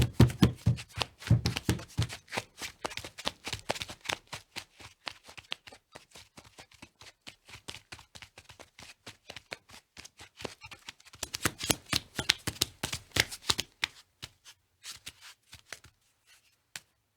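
Footsteps sound effect: a quick run of sharp steps, several a second, loudest at the start, thinning out, then loud again about eleven seconds in before tapering off to a few last steps near the end.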